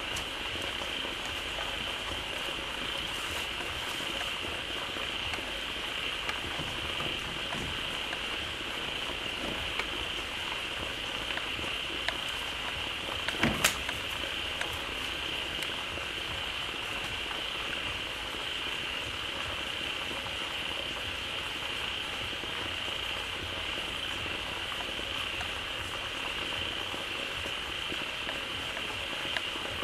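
Dense chorus of many frogs calling together at a pond, an even, churning mass of croaks under a steady high buzz. A few sharp clicks stand out about halfway through.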